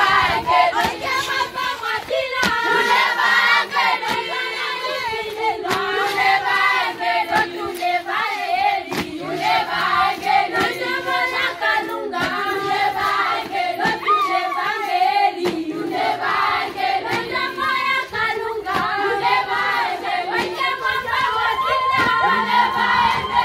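A group of teenage students singing together in chorus as they walk, with hand claps scattered through the song.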